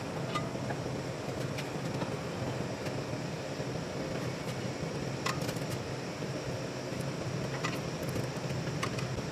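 A steady fan-like hum, with a few light, sharp metal clicks and taps from a screwdriver working at the back of the engine block.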